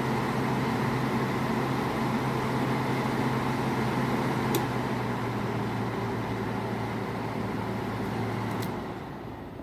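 General Electric 5,150 BTU window air conditioner's fan running on high: a steady whir over a motor hum, with a click about halfway through. Near the end another click, the motor cuts out and the fan starts to spin down.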